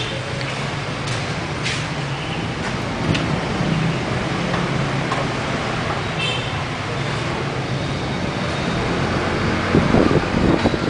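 A Toyota minivan's rear hatch being opened and a surfboard slid into the cargo area, over a steady low hum. A short high squeak comes about six seconds in as the hatch opens, and a cluster of knocks follows near the end as the board goes in.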